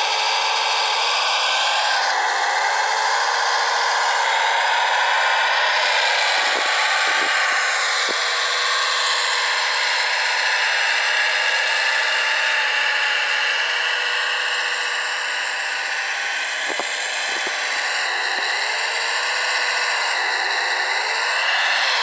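Whine of a radio-controlled scale Caterpillar 973D track loader's electric motors and hydraulic pump, its pitch rising and falling as the model drives through snow and moves its bucket. A few short clicks come about a third of the way in and again later.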